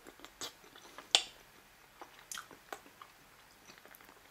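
A person chewing a spoonful of beef ravioli in mushroom sauce, with scattered soft clicks and smacks. The sharpest click comes about a second in.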